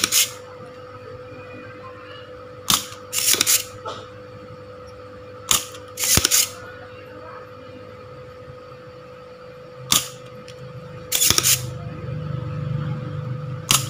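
Spring-loaded desoldering pump (solder sucker) being cocked and fired again and again to clear solder from a transistor's pins on a TV circuit board: sharp snaps, singly or in pairs, every second or few, over a steady faint hum.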